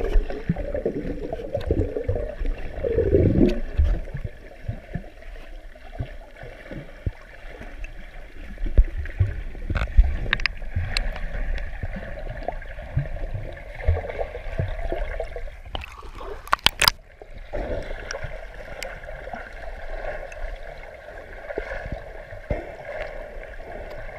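Muffled underwater sound heard through a camera's waterproof housing: water swirling and gurgling against the case with scattered low thumps, and a short cluster of sharp clicks a little after halfway through.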